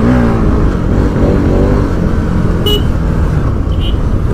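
Bajaj Pulsar NS200's single-cylinder engine running as the bike is ridden, its pitch wavering with the throttle over a steady rush of wind and road noise. Two short high chirps come near the end.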